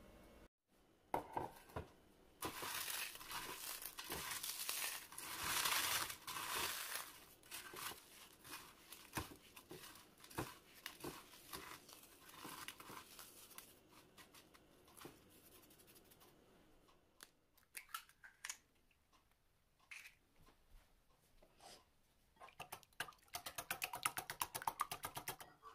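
Hands crumbling crisp toasted bread into crumbs in a baking pan: a dense, dry crackling rustle for about ten seconds, then softer and sparser. Near the end, a wire whisk beats an egg in a ceramic bowl with rapid, evenly spaced ticking strokes.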